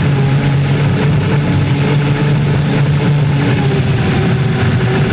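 Unlimited hydroplane running fast on the water, heard from a camera mounted on the boat: the Lycoming T55 turbine engine's steady loud drone under a constant rush of wind and water.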